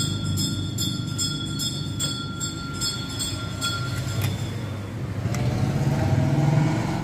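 A motor vehicle's engine running with a steady low rumble, growing louder about five seconds in.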